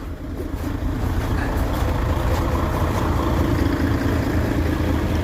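Diesel truck engine idling steadily, growing louder over the first second and then holding even.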